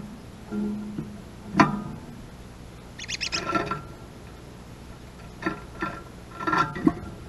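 Slow acoustic guitar music: a few single plucked notes and strummed chords, spaced irregularly, each ringing out briefly.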